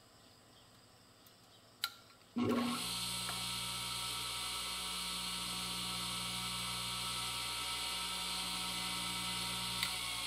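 A vintage Black & Decker 8-inch bench grinder's electric motor, freshly rewired, with bare arbors and no wheels, is switched on with a click of its toggle switch about two seconds in. It spins up with a rising whine, then runs with a steady hum and whir. A second, smaller click comes near the end.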